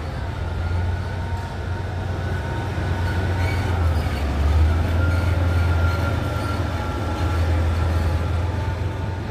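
Diesel shunting locomotive running: a steady low engine rumble that swells a little about halfway through, with a faint thin whine above it.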